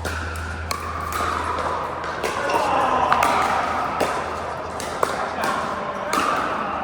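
Pickleball paddles striking the plastic ball in a rally: sharp pops about once a second, with indistinct voices of players in the background.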